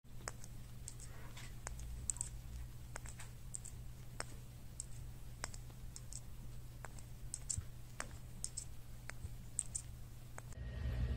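Faint, irregular small clicks, about two a second, over a steady low hum; a louder hiss comes in near the end.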